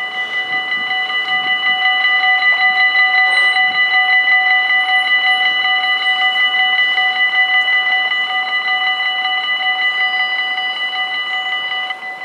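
Dutch level-crossing warning bells ringing rapidly and steadily as the barriers come down, warning of an approaching train. They cut off sharply about twelve seconds in, as the barriers reach the closed position.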